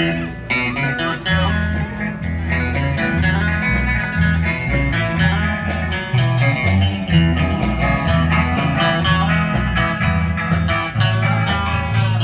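Live band music amplified through PA speakers: picked guitar over a bass line that changes note about twice a second.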